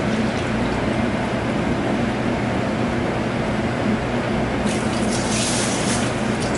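Milk pouring from a plastic gallon jug into a plastic measuring jug, then a louder splashing pour near the end as it is tipped into the soup pot.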